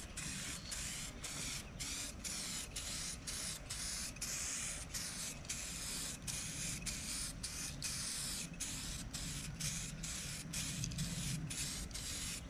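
Aerosol can of 2K clear coat spraying a light coat: a steady hiss with brief breaks about three times a second.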